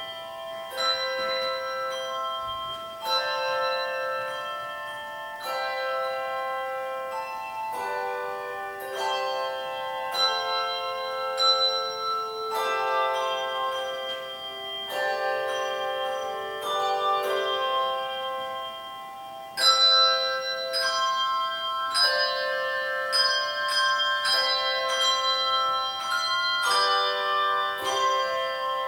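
Handbell choir playing, with chords of struck handbells ringing on and overlapping. The playing gets louder with a strong strike about two-thirds of the way through.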